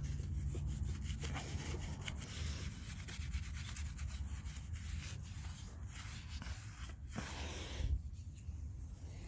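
Scraping and rubbing at a surface, plausibly old glue being worked off, with scattered small clicks and a sharper knock about seven seconds in, over a low rumble.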